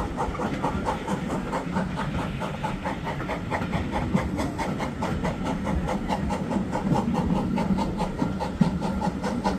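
A train running on the West Somerset heritage railway: a steady rumble with a quick, even clatter several times a second.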